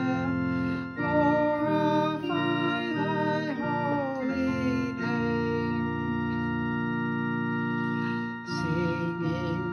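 Organ-led worship music with a singing voice: a run of shorter chords, then one long held chord through the middle, and a new phrase starting near the end.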